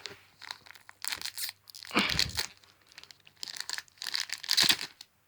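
Trading-card booster pack wrapper being torn open and crinkled by hand, in several irregular bursts of rustling and tearing.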